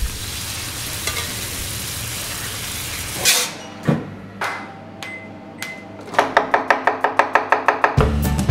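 A steady sizzle of food frying, then a few sudden whooshes as a pan flares up in flame. Past the middle comes a fast run of sharp ticks, about six or seven a second, and near the end music with drums and bass comes in.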